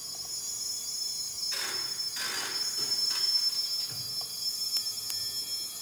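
Nitrogen flowing from the bottle through the charge kit into a Tramac hydraulic hammer's accumulator: a steady thin high-pitched whistle over a faint hiss, with two brief louder rushes about two seconds in. The sound is the gas charging the accumulator as its pressure rises.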